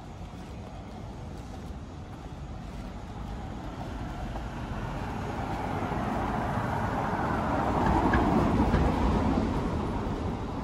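A car driving past on the street: its tyre and engine noise grows steadily as it approaches, is loudest a couple of seconds before the end as it goes by, then begins to fade.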